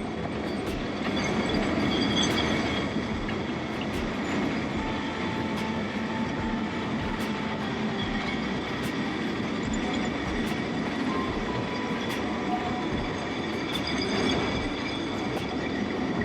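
Great Orme Tramway's cable-hauled tramcar running on its rails, heard on board: a steady rumble of wheels on track, with scattered clicks and a faint squeal from the wheels now and then.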